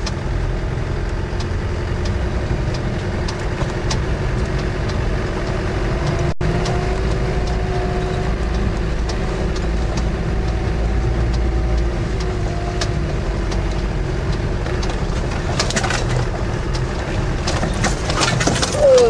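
Land Rover Defender 90's 300Tdi diesel engine running steadily while the vehicle drives along, with a steady whine over the low rumble. The sound cuts out for an instant about six seconds in, and a few knocks come near the end.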